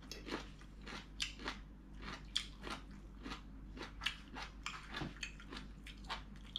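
A person chewing a mouthful of stir-fried beef and farfalle pasta close to the microphone, in short irregular bites, about three a second.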